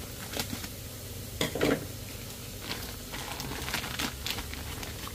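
Steady sizzle of food frying on a Blackstone flat-top griddle, with the crinkle of a plastic bag being handled. The bag noise is loudest about a second and a half in.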